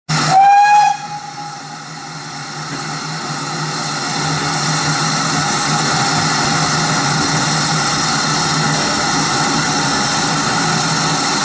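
GWR 5700 class pannier tank locomotive sounds one short whistle blast as it sets off with its train. Then a steady hiss of steam builds over a few seconds and holds as the engine moves slowly away.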